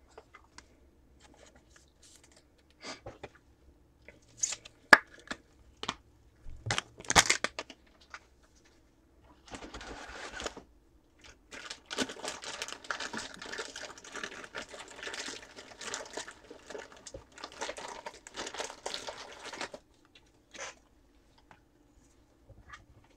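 A few sharp clicks and knocks of things handled on a desk, then about ten seconds of steady crinkling and crumpling of a foil trading-card pack wrapper.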